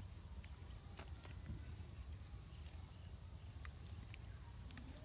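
Steady high-pitched chorus of insects, with a low wind rumble underneath and a few faint clicks.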